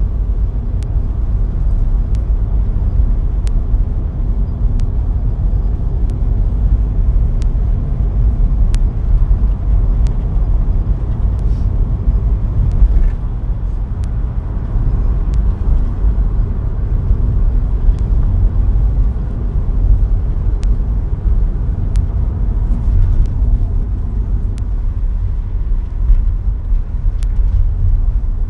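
A car driving steadily on a narrow country road: low, even rumble of engine and tyres on tarmac, with faint sharp ticks about once a second.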